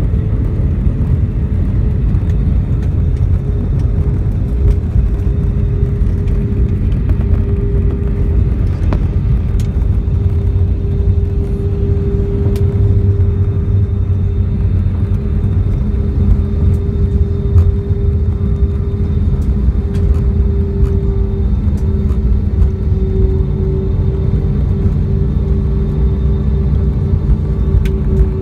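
Airliner cabin noise at a window seat over the wing while the jet rolls on the ground after landing: a steady low rumble with a held engine tone that sinks slowly lower as the engines run down toward idle.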